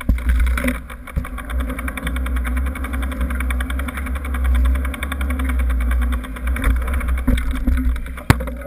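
Mountain bike rear freehub ticking rapidly and evenly as the bike is wheeled along without pedalling, over a steady low rumble carried through the frame to the camera. A single sharp knock near the end.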